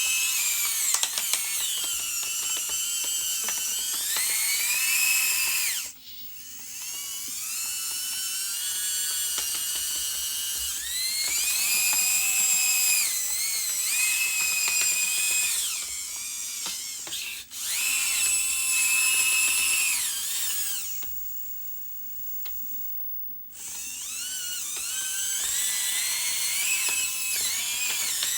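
Small electric motors and plastic gearboxes of RC construction models whining, the pitch rising and falling as they speed up and slow down. They stop briefly about six seconds in and again near the middle, then pause for a couple of seconds before starting up again.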